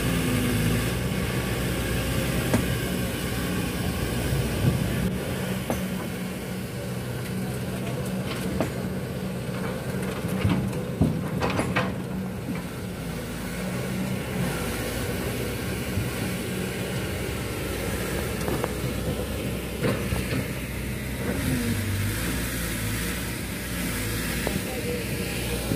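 Diesel engine of a Kobelco hydraulic excavator running steadily while it loads a dump truck. A few sharp knocks of rock and earth dropping into the steel truck bed come around the middle.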